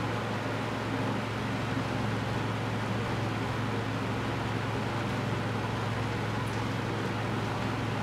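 1976 Lakewood 12-inch box fan with a Fasco two-speed motor running steadily on low speed: an even rush of air over a steady low motor hum.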